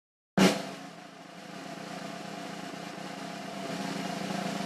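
An engine running steadily, starting suddenly with a loud onset about half a second in and slowly growing louder.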